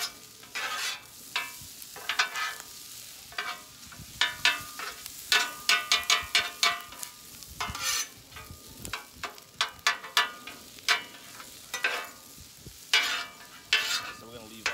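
Spatulas scraping and chopping on a hot flat-top griddle, breaking up clumps of cold, sticky sushi rice for fried rice. The strokes come quick and irregular, each with a short ringing scrape, over a steady sizzle.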